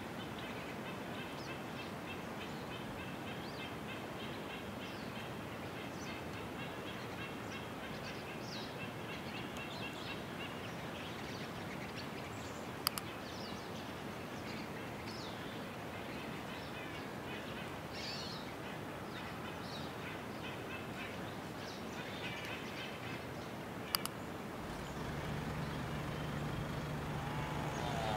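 Outdoor ambience of many birds chirping over a steady background hiss, with two sharp clicks. About 25 seconds in, a low engine hum comes in and grows louder.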